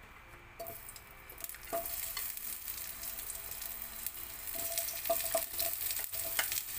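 Sliced red onion hitting hot olive oil in a wok and sizzling, the hiss starting about half a second in and growing louder as more onion goes in, with a few sharp clicks along the way.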